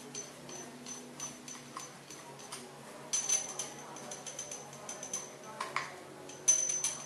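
Small metallic clicks and scraping from a screwdriver tip working in the centre of a chrome thermostatic mixer cartridge. Louder clusters of clicks come about three seconds in and again near the end.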